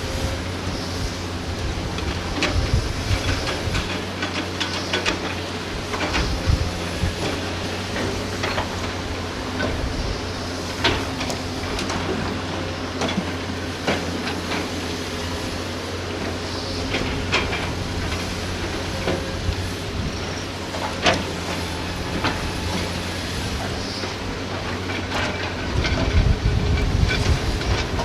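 Heavy diesel excavator engine running steadily while the machine works, with scattered knocks and clatter of sand and rocks against the steel bucket and truck bed. The engine grows louder near the end.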